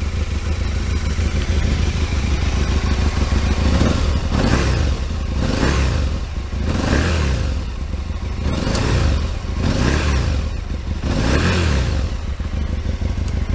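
Aprilia RSV Mille 1000's V-twin engine, fitted with its standard exhaust end can, idling and then revved about six times, the pitch rising and falling with each blip of the throttle.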